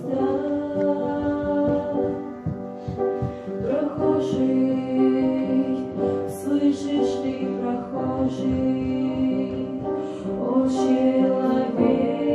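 A Christian song: voices singing long held notes over instrumental accompaniment.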